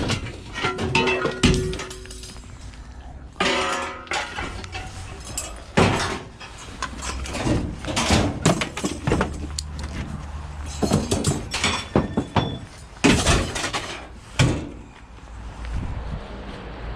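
Repeated metal bangs, knocks and clanks of scrap being handled and loaded into a van, in irregular bursts.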